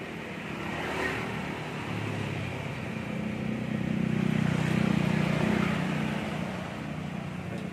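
Hot oil sizzling as battered chicken pieces deep-fry in a wok, with a motor vehicle's engine passing by, swelling to its loudest around four to six seconds in and then fading.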